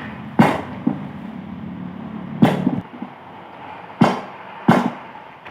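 Hammer blows on metal: four sharp strikes and one lighter one, unevenly spaced, each with a short ring. A steady hum underneath stops about halfway through.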